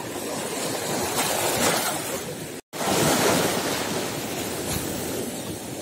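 Sea surf washing and breaking over rocks along the shore, a steady rushing wash with no single standout event; it drops out completely for an instant a little before halfway through.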